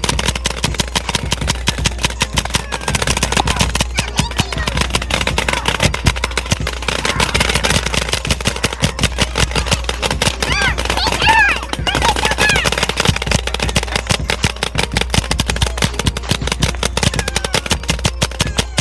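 Paintball gun firing in rapid succession, several sharp shots a second without a break, with a voice rising over it about eleven seconds in.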